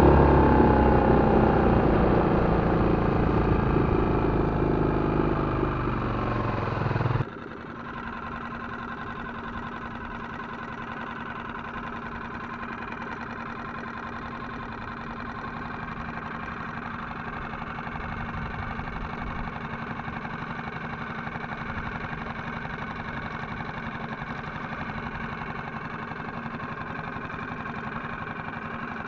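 Parsun F6 four-stroke outboard motor running under way. For the first seven seconds it is loud and slowly falls in pitch and loudness; then the sound cuts abruptly to a quieter, steady engine note.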